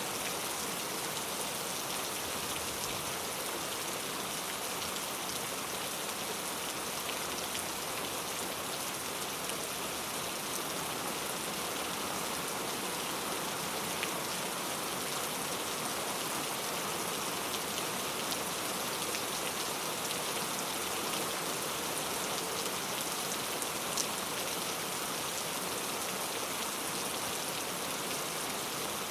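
Heavy rain falling steadily, an even hiss of many drops with no let-up, and a few single louder drop ticks now and then.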